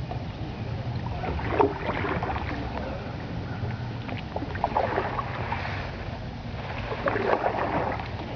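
Canoe paddle strokes in river water: three slow strokes, each a splash and trickle of dripping water, over a steady low rumble.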